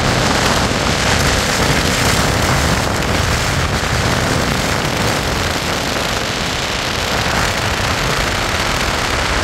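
Steady, loud rush of wind and road noise from a moving vehicle, with wind buffeting the microphone.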